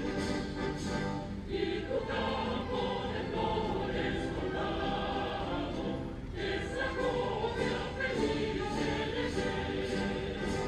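Choral music: several voices singing held notes together, with a short break about six seconds in.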